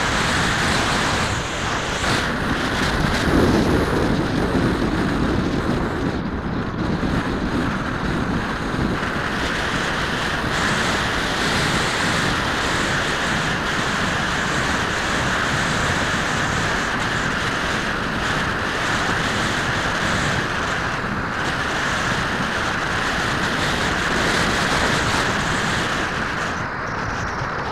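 Steady wind noise buffeting the microphone of a camera on a moving road bike, swelling in a low gust a few seconds in.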